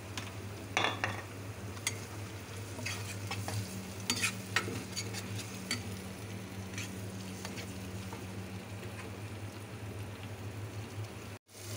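Chopped tomatoes frying with onion and ginger-garlic paste in a non-stick pot, sizzling faintly, while a metal spoon stirs and scrapes against the pan with scattered clicks, most of them in the first half. A steady low hum runs underneath, and the sound drops out for an instant near the end.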